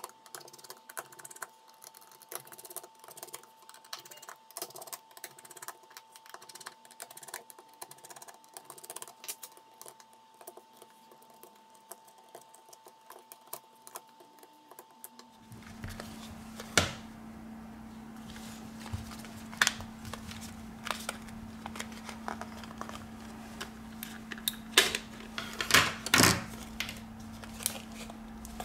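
Tools and small parts of a Samsung Galaxy Note 4 clicking and tapping as the phone is taken apart. For the first half there are rapid light ticks over a faint high whine. Then a low steady hum comes in, with fewer, sharper taps.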